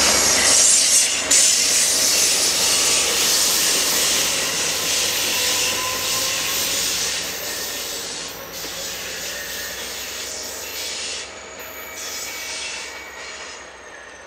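CSX diesel locomotives running light, without cars, rolling away: their wheel and rail noise is mostly a high-pitched hiss that fades steadily as they recede into the distance.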